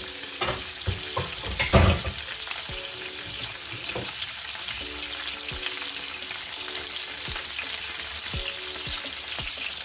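A whole scored ta'ape (snapper) frying in hot oil in a pan, a steady loud sizzle. A few sharp knocks come in the first two seconds, the loudest just before two seconds in.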